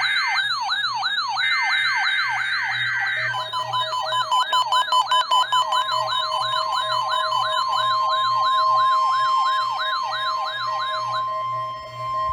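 NOAA Weather Radio's 1050 Hz warning alarm tone during the weekly test, with weather alert radios sounding their warbling siren alarms over it: fast rising-and-falling wails, a little over two a second. The sirens stop near the end while the steady alarm tone carries on.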